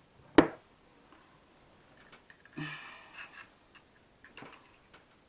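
Tape measure parts being pressed into the case by hand: one sharp, loud click about half a second in, then scraping and a few faint ticks.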